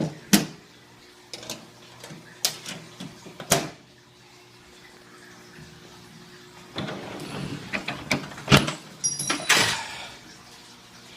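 Metal tool chest on caster wheels being handled: several sharp clicks and knocks, with a longer scraping, rattling stretch about seven to ten seconds in.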